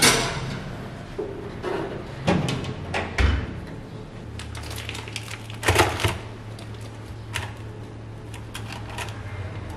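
Kitchen handling noises: a sharp clatter as a ceramic bowl is set onto a metal oven rack, then a string of clicks and knocks around the oven, the loudest about six seconds in. A low steady hum runs underneath from about three seconds in.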